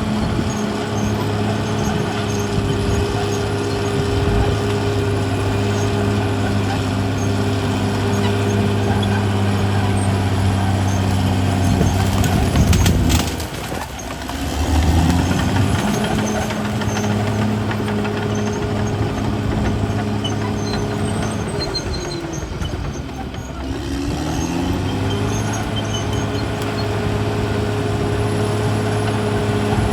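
CAT D6R XL bulldozer's diesel engine running steadily at working speed. Twice, about halfway through and again near the end, it drops in speed and then climbs back up.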